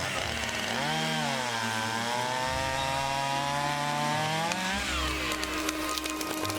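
Two-stroke chainsaw, its chain freshly sharpened, cutting into a dead standing tree. The engine pitch dips as the chain bites about a second in, holds under load for a few seconds, then rises and falls away about five seconds in.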